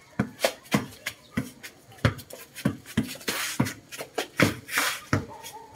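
A series of irregular sharp clicks and knocks, about two a second, with two short hissing noises in the middle.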